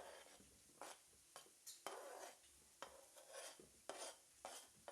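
Near silence with a dozen or so faint clicks and short scrapes, from diced plantain pieces being put into a bowl.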